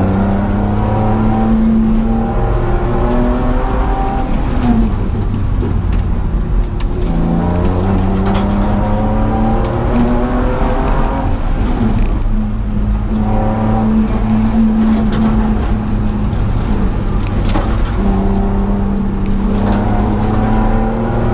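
A 2000 BMW E46's engine heard from inside its stripped-out cabin on a track lap. It is pulling hard, and its pitch climbs, holds and drops several times as the car speeds up and slows for corners.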